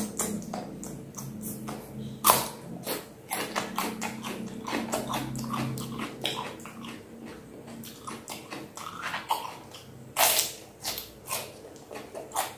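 Raw cucumber being bitten and chewed close to the microphone: wet, crisp crunching in quick irregular clicks, with two loud crunches about two seconds in and about ten seconds in.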